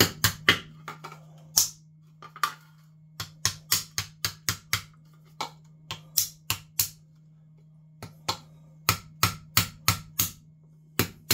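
Hammer striking the plastic case of a plug-in capacitor power filter held against a hard floor: sharp knocks in quick runs of several, with short pauses between runs. It is hammering to crack open the glued or ultrasonically welded plastic shell.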